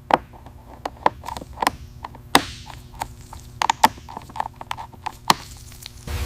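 Irregular light taps and clicks of hand work in a workshop, about fifteen over six seconds, some ringing briefly, over a faint steady hum.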